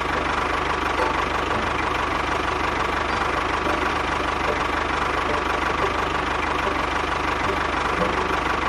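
An engine running steadily at idle, with a fast, even beat and a steady whine.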